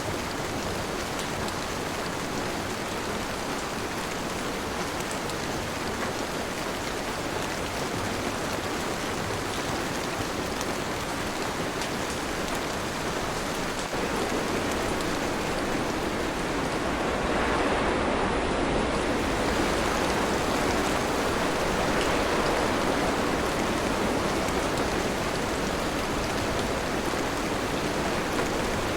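Steady rain pouring down, an even hiss of drops, growing a little louder about halfway through.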